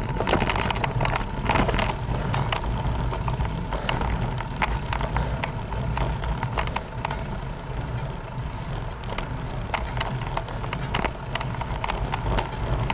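Road and wind noise picked up by an action camera mounted on a road bicycle riding uphill: a steady low rumble with frequent irregular clicks and knocks.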